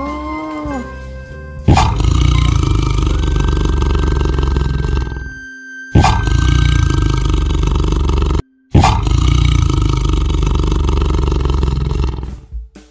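Tiger roaring: three long, loud roars, each starting abruptly and lasting about three seconds, over light background music.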